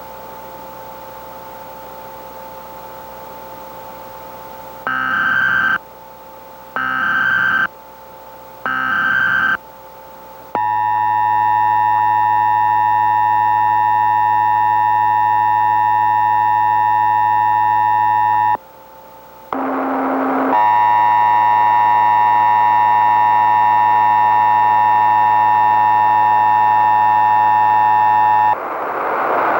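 Emergency Alert System tones over a steady hiss: three short SAME header data bursts about two seconds apart, then the long steady EAS attention signal for about eight seconds, a brief break with a short buzz, and a second long steady alert tone.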